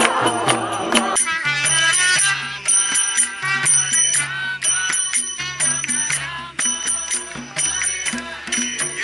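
Kirtan music: small hand cymbals (kartals) clashing in a brisk, steady rhythm over held low notes. Group chanting can be heard in about the first second.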